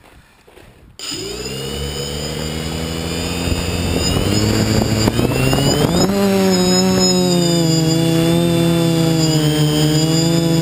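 Multirotor drone's electric motors and propellers starting up about a second in with a steady whine, then rising sharply in pitch about six seconds in as the throttle is raised, and running on with a slightly wavering pitch.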